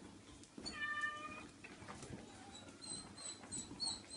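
A cat gives one drawn-out, steady-pitched meow about a second in, followed by a run of short high squeaks.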